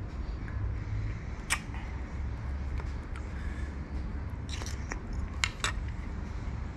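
Eating sounds: a metal spoon scraping and clicking in a ceramic bowl of sour palm fruit (luk kho) in chili-salt sauce, then biting and chewing the fruit, with a few sharp crisp clicks about a second and a half in and a cluster of them between four and six seconds in. A low steady rumble sits underneath.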